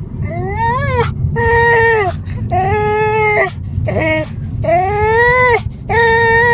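A dog crying with high, drawn-out whining cries, about six in a row, each under a second, some rising in pitch, over a steady low rumble from the car.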